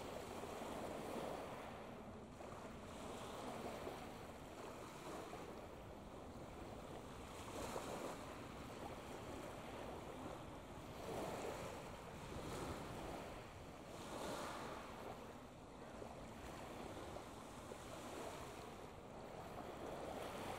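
Outdoor waterside wind and water: a steady rushing noise that swells and eases irregularly every second or two, with wind buffeting the microphone.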